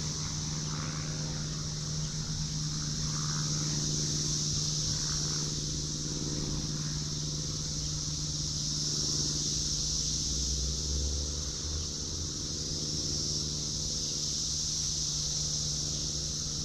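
Farmyard ambience: a steady high-pitched insect drone and a constant low hum, with a few soft hen clucks in the first few seconds.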